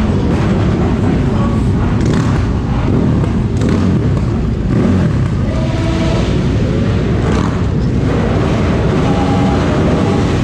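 Many motorcycle engines running together, a loud steady rumble with revs rising and falling now and then as bikes pull away.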